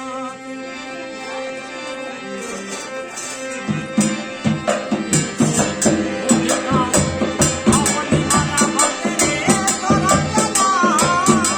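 Rajasthani folk devotional music. Held melodic tones play first; about four seconds in, a fast percussion rhythm with jingling tambourine-like hits joins. A wavering melody line rises over it near the end.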